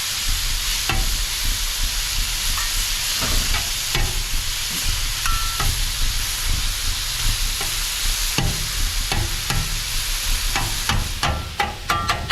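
Chicken sizzling on a Blackstone flat-top griddle as a metal spatula scrapes and clicks against the cooking surface. Near the end the sizzle drops and a quick run of ringing metal clinks follows.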